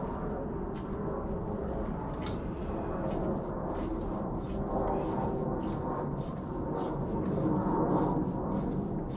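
Hand-tool work in a stripped head bolt hole of a Northstar V8 block: a thread cutter being worked into the threads, with a run of light, irregular metal clicks over a steady scraping noise.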